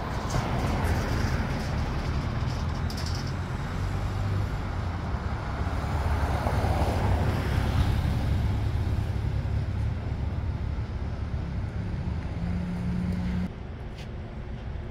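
Street traffic: a motor vehicle driving past with a low engine rumble, loudest about halfway through and cutting off abruptly near the end.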